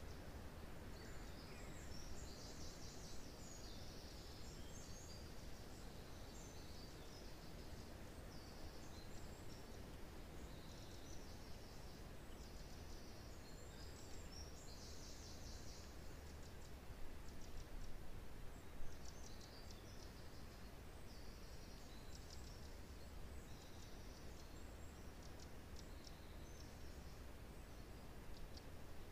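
Wind rushing through pine trees as a steady low rush, with forest birds chirping on and off. The sound is briefly louder about two-thirds of the way in.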